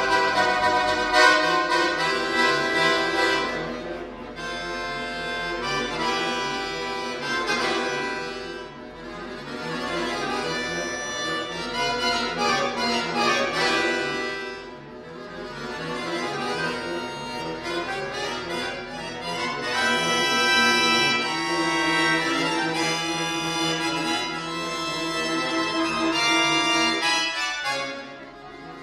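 Chromatic button accordion (bayan) played solo: full sustained chords with rising and falling runs, the loudness swelling and easing back in phrases a few seconds long and dropping away briefly near the end.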